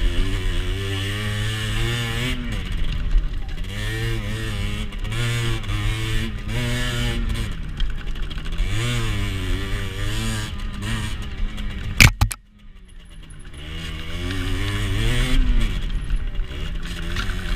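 Rieju SMX 50cc two-stroke motorcycle engine revving up and down again and again while riding. About twelve seconds in there is a sharp click, then the engine sound drops away suddenly and builds back up over a couple of seconds.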